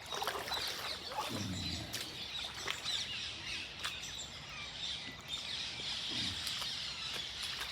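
A large flock of rose-ringed parakeets calling, many short high calls overlapping continuously.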